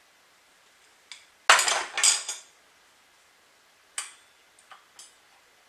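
Metal clutch parts of a Hangkai 3.6 hp outboard being lifted off their studs and set down on a workbench: a click, then a short metal-on-metal clatter, the loudest sound, and a few lighter clinks near the end. The parts are worn-out clutch shoes, worn down to the steel.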